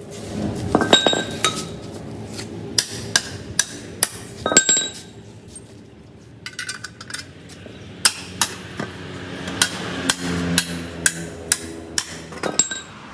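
Metal tapping and clinking on steel parts: irregular sharp strikes, some ringing briefly, with a faster run of strikes about twice a second in the second half.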